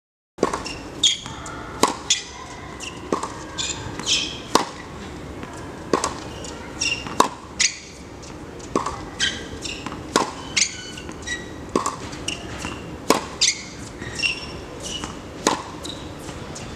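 Tennis balls being hit with a racket and bouncing on a hard court during forehand practice: a series of sharp pops, roughly one a second, at an uneven rhythm.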